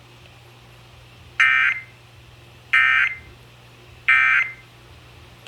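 Three short bursts of Emergency Alert System SAME digital data tones, each a brief harsh buzz, about 1.3 seconds apart: the end-of-message code that closes the alert.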